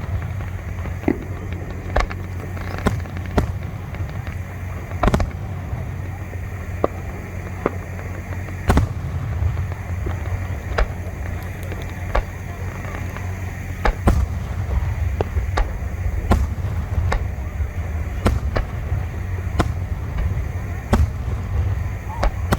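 Aerial fireworks display going off: a string of sharp bangs and crackles at irregular intervals, roughly one every second, some echoing briefly, over a steady low rumble.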